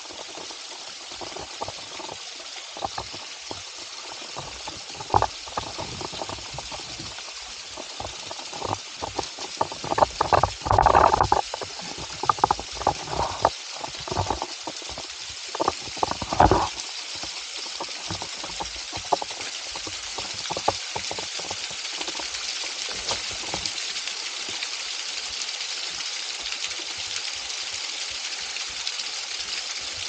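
Shallow forest stream running over rocks, a steady rushing hiss that grows a little louder near the end. Scattered close knocks and clatters come through the middle stretch, the loudest cluster about ten seconds in and another sharp one about sixteen seconds in.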